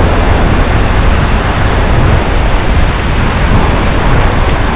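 Strong sea wind buffeting the microphone, a loud steady rumble, with surf washing on the beach underneath.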